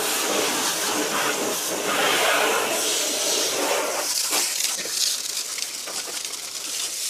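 Garden hose spray nozzle jetting water onto a car's alloy wheel and tire, rinsing off wheel cleaner: a steady spray that shifts a little as the jet moves over the wheel.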